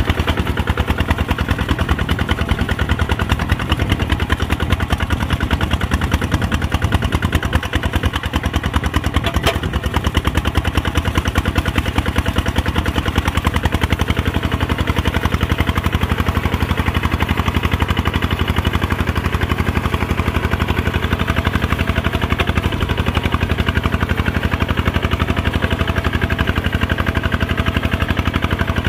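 Kubota RT140 walk-behind tractor's single-cylinder diesel engine running steadily in a rapid, even chug while working a muddy field.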